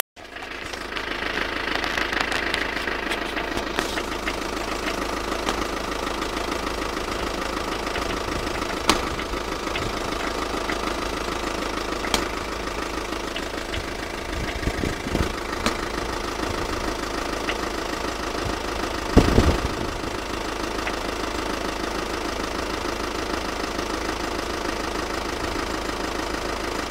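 Volkswagen Passat engine running steadily at idle with a knocking noise, the fault the clip is meant to show. A few louder thumps stand out now and then.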